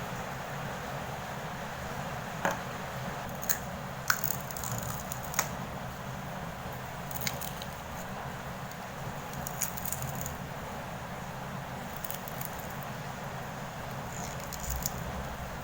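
Foley of an egg hatching: small, sharp cracks of shell breaking, coming singly at uneven intervals about eight times, over a steady low hiss.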